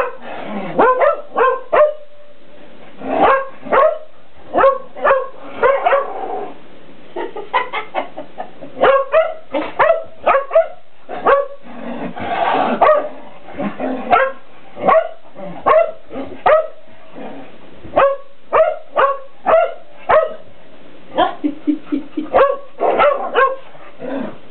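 Shetland sheepdog barking at play: short, sharp, high barks in quick irregular runs, sometimes several a second, with brief pauses between runs.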